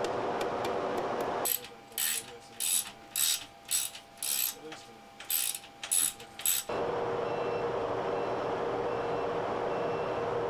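A ratchet wrench being worked in about nine short clicking strokes at irregular half-second spacing, between stretches of steady rushing background noise.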